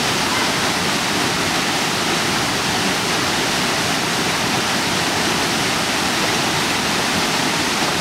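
Mountain waterfall pouring into a rocky pool: a steady, even rush of falling water.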